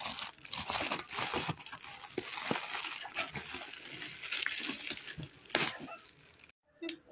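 Plastic mailer bag rustling and crinkling as it is gripped and pulled at to get it open, with scattered knocks of hands on the package and a sharper crackle about five and a half seconds in.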